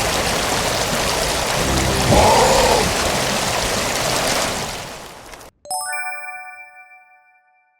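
A steady rushing, rain-like noise that fades out about five seconds in, then a sudden bright chime sound effect with several ringing tones that dies away to silence.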